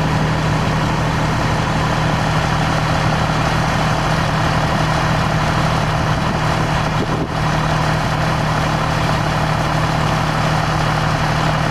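Fire engine's motor running steadily at the scene with a constant low drone, driving the pump that feeds the hose lines.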